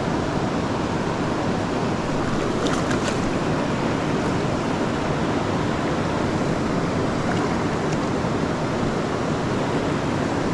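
Steady rushing of a river flowing over a rocky bed.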